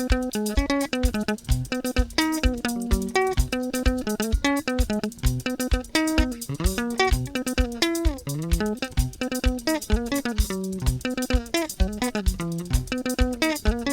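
Sungura guitar music: quick, picked guitar notes with bends and slides, over a bass line and a steady, even beat.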